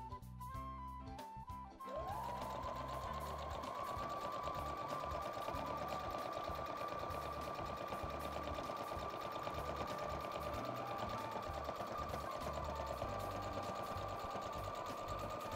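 Electric domestic sewing machine stitching through thick fleece and cotton. Its motor starts up about two seconds in with a rising whine, then runs steadily at speed with a fast, even needle rattle.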